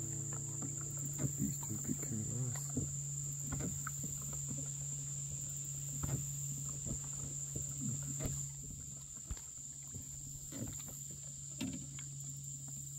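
Insects calling in a steady high-pitched chorus, over a low steady hum, with scattered faint clicks and knocks.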